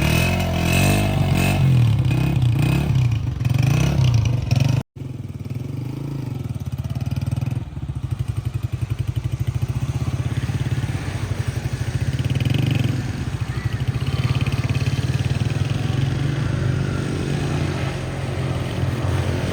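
Honda CG 125's air-cooled single-cylinder four-stroke engine idling steadily, with an even low pulse. The sound drops out for a split second about five seconds in.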